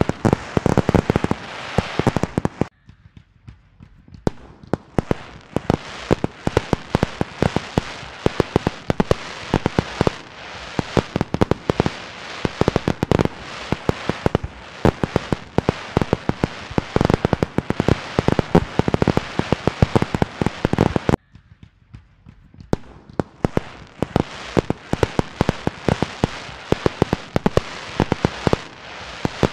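Fireworks going off in a dense, rapid crackle of sharp bangs, cutting out abruptly twice for a second or so before resuming.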